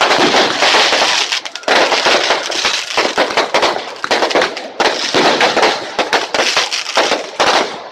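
Fireworks going off in dense, rapid, overlapping bangs and crackles, with a couple of short lulls.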